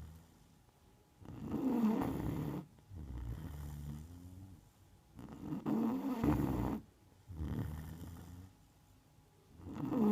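Neapolitan mastiff snoring in deep sleep, a loud rattling snore about every four seconds with softer breaths between them.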